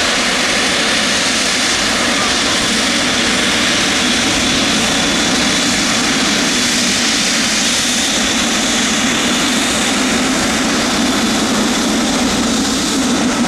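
Jet engine noise from a Boeing 777-300ER's GE90-115B turbofans, a steady rushing roar with a low hum that grows stronger in the last few seconds.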